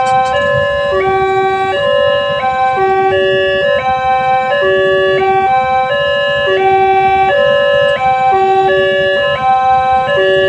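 Electronic railway level-crossing alarm sounding continuously: a stepped multi-tone warning whose pitch pattern repeats about every two seconds, the signal that a train is approaching.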